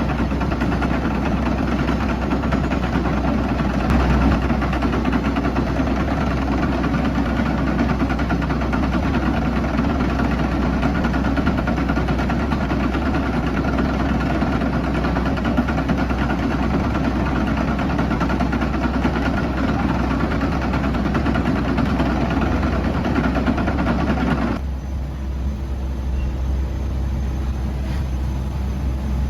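Komatsu PC78UU-8 excavator's diesel engine running steadily. About 25 seconds in, the brighter, noisier part of the sound cuts off abruptly and a lower engine hum remains.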